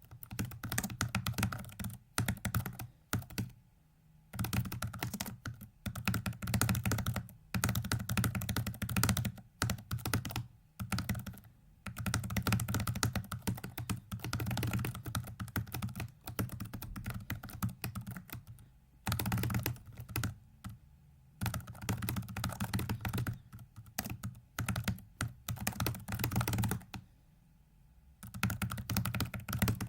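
Computer keyboard keys being struck very rapidly in dense bursts of a few seconds, with brief pauses between bursts and a longer pause near the end: the keystrokes enter the moves of a speedsolve of a virtual 4x4x4x4 hypercube puzzle.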